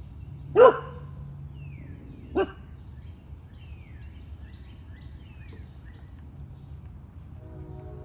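Cane Corso puppy barking twice, short single barks about two seconds apart, the first much louder than the second.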